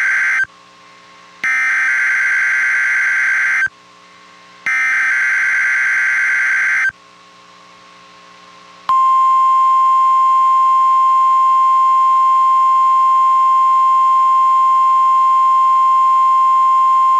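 NOAA Weather Radio SAME alert header: the end of one burst of harsh digital data warbling, then two more bursts of about two seconds each with short gaps between them. About nine seconds in, the steady 1050 Hz weather-radio warning alarm tone starts, one loud unbroken pitch.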